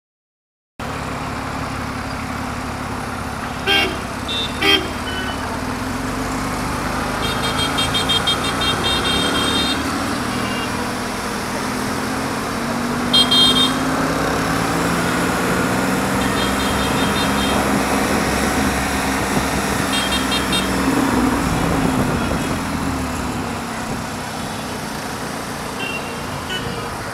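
Busy city-street traffic heard from among moving vehicles: engines running and changing pitch, with horns tooting several times. There are two sharp knocks about four seconds in.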